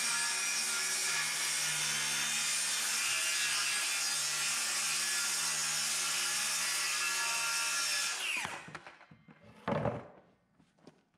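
Circular saw cutting through plywood, a steady whine of the motor with the blade in the wood. About eight seconds in the trigger is released and the blade spins down, followed by a single thump.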